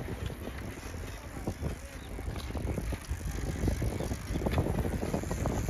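Bicycles rolling over concrete slabs: a low tyre rumble with many irregular clicks and rattles, getting a little louder near the end.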